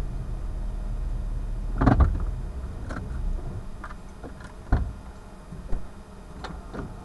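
A vehicle's low running rumble, heard inside the cabin, as it pulls in and comes to a stop, easing off about halfway through. Over it comes a string of clunks and clicks: the loudest about two seconds in, and a sharp low thump a little after the middle.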